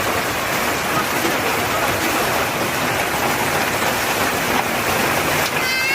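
Heavy rain pouring down steadily onto hard surfaces, a dense even hiss.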